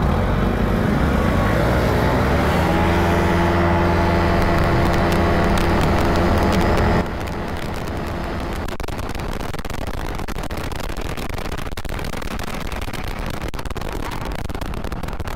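Kymco KRV 180 TCS scooter engine pulling away, its pitch rising and then holding steady while riding. About halfway through it cuts abruptly to a quieter, rougher rush of riding noise, with the engine in the background.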